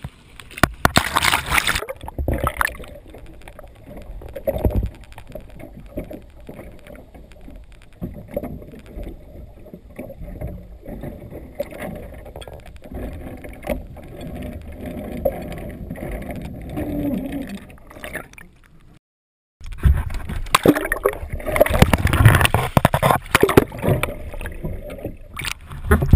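Water rushing and splashing against a waterproof action-camera housing held at the waterline beside a moving boat's hull. For much of the middle the sound turns dull and muffled while the camera is under the surface. After a brief cut-out about two-thirds of the way through, loud splashing returns.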